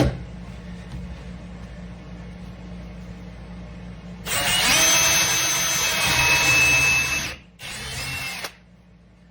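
Power drill boring a 7/16-inch screw-tip auger bit through clamped wood: a loud whining cut of about three seconds, then a shorter second burst. A sharp click comes near the start.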